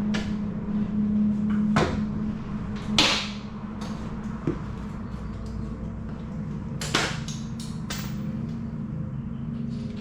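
Scattered metallic clanks and knocks of hand tools and parts being handled during engine disassembly, half a dozen separate hits with the loudest about three seconds in, over a steady low hum.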